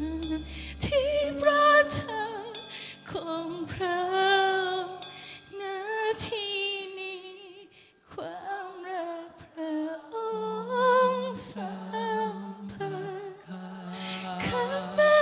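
A woman singing a slow Thai Christian worship song into a microphone, in long held phrases with vibrato, over soft sustained keyboard notes.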